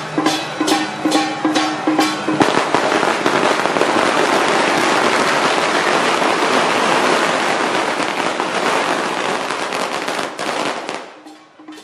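A long string of firecrackers going off in a dense, continuous crackle for about eight seconds, starting about two seconds in and drowning out the procession music with its steady percussion beat, then dying away near the end.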